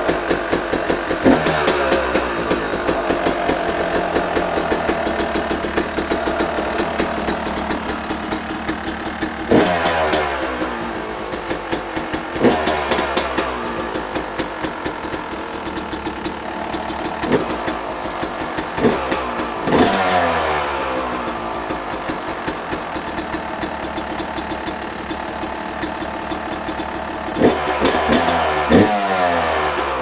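Yamaha YZ250 two-stroke dirt bike engine idling, with the throttle blipped about eight times and each rev falling back to idle. It is running again on a fresh spark plug after the old one fouled.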